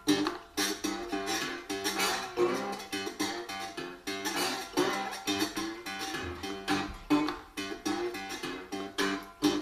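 Homemade cigar box guitar played acoustically, without an amplifier: sharp strums and picked notes in a riff that repeats.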